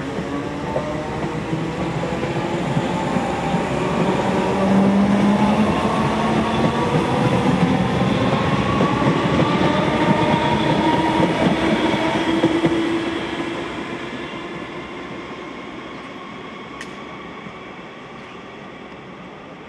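Electric multiple-unit passenger train passing close by and running away along the line, its wheels rumbling on the rails under a whine of several tones from the traction gear. The sound builds to its loudest through the middle, then fades steadily as the train draws away.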